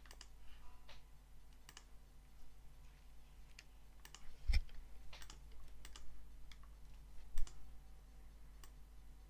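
Scattered clicks of a computer mouse and keyboard while working in a drawing program, with two louder knocks about four and a half and seven and a half seconds in. A faint steady low hum runs underneath.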